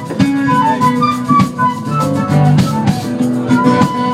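Live band playing an instrumental passage: drum kit and guitars under a single high lead melody line.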